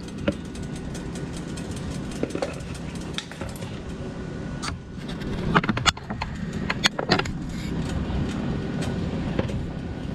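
Frying pan of sliced apples cooking in butter, over a steady low hum. A few sharp clicks and taps come a little past halfway while a dry sugar, spice and flour mix is poured over the apples.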